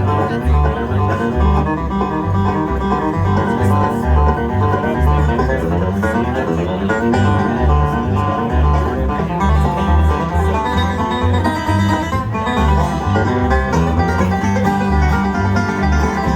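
Bluegrass band playing an instrumental passage without singing: quick banjo picking and guitar over a steady, pulsing bass line.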